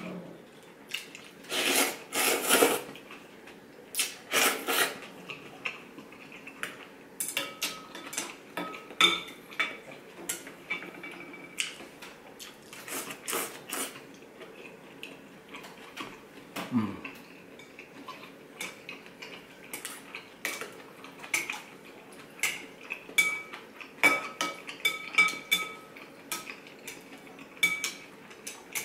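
Chopsticks and a soup spoon clicking and scraping against a ceramic ramen bowl, with short ringing clinks. Several slurps of noodles and broth, each about a second long, come about two seconds in, at four and a half seconds, and halfway through.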